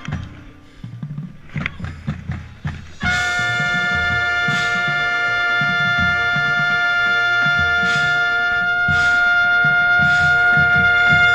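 Marching band: about three seconds of percussion alone, then the brass section comes in on one long held chord. The trumpet right at the microphone is the loudest part, swelling slightly as the chord is held, with the percussion still beating underneath.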